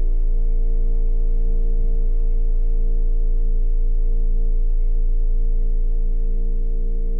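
Ominous horror-score drone: a deep bass hum with several held tones stacked above it, sustained without a break.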